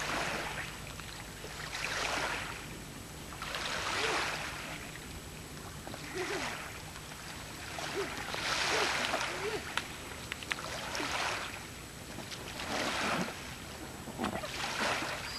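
Small waves washing in and out at the shallow edge of a stony beach, swelling and fading about every two seconds, with water sloshing around an inflatable air mattress.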